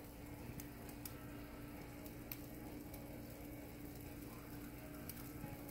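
Water at a rolling boil in a saucepan, faint bubbling with a few scattered small pops, over a steady low hum.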